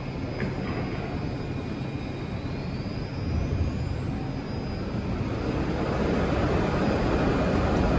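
New York City subway train running in an underground station: a steady rumble with a faint whine rising in pitch about three seconds in, the rumble growing louder in the second half.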